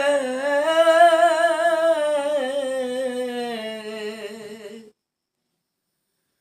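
Unaccompanied voice singing a Bengali folk song, drawing out the last note of a line with a strong vibrato. The note slowly sinks and fades away about five seconds in, then there is complete silence.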